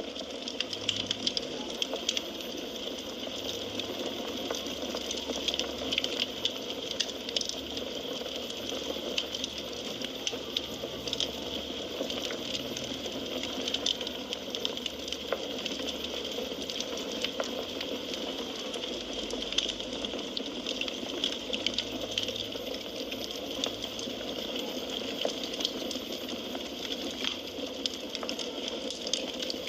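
Firewood burning in a fireplace: a steady hiss with frequent small irregular crackles and pops.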